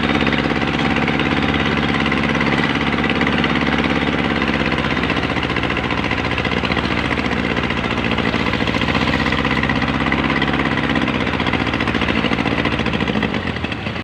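Small boat's engine running steadily under way, with water rushing past the hull.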